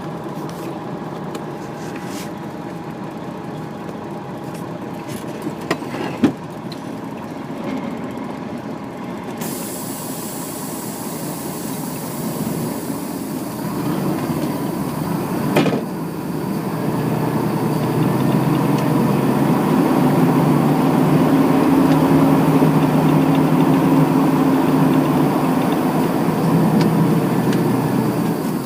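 Heavy truck engine running, growing louder over the second half as it comes closer. There is a sharp knock about six seconds in and a brief sharp hiss about halfway through.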